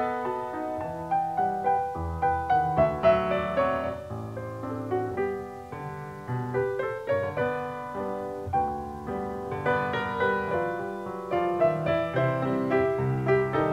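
Piano music: a melody of separate struck notes, a few a second, over lower bass notes.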